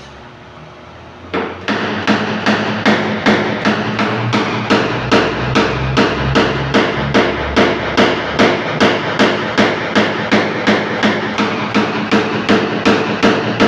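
Paintless dent repair tap-down: a hammer striking a tap-down punch held against a car's body panel, evenly, about three light taps a second, starting about a second and a half in. The taps knock down small high spots so the metal's finish comes out level.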